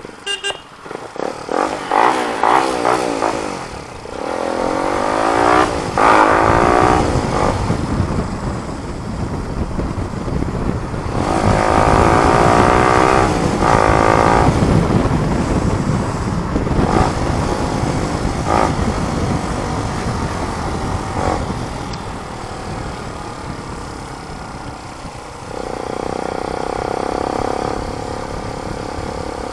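Motorcycle engine with a new muffler, rising in pitch again and again as it accelerates through the gears, then running more steadily near the end, over low wind rumble.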